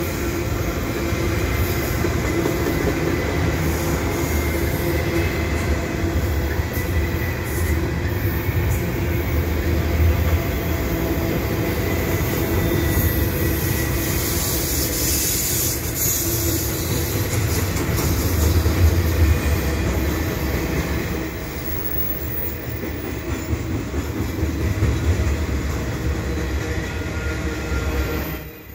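CN double-stack container train rolling past close by: a steady rumble of its well cars' wheels on the rails, with a faint high wheel squeal.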